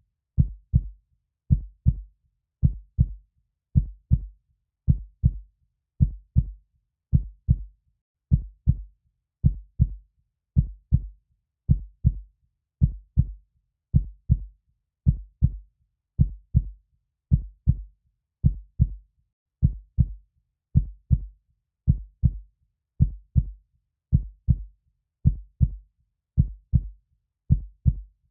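Heartbeat sound: a slow, steady lub-dub, each beat a pair of low thumps, repeating about once a second.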